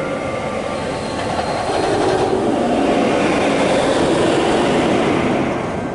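Ice Breaker steel roller coaster train on a test run, rumbling along its track; the rumble swells about two seconds in and eases near the end.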